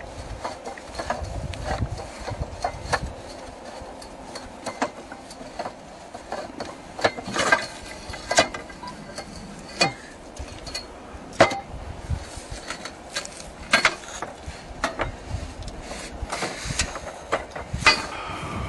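Irregular knocks and clanks: a handful of loud strikes among many lighter taps, with no steady rhythm.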